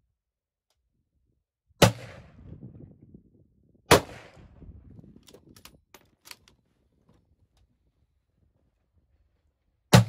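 Three rifle shots on a firing range, the first two about two seconds apart and the third about six seconds later, each with a short trailing echo. A few light clicks come between the second and third shots.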